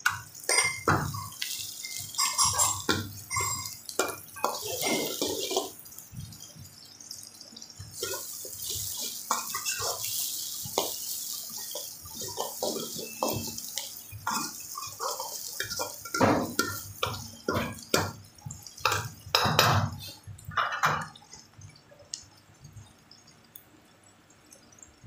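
Sliced onions and capsicum sizzling in hot oil in a wok, with a metal ladle scraping and knocking against the pan as they are stirred. The sizzle and stirring fall quieter in the last few seconds.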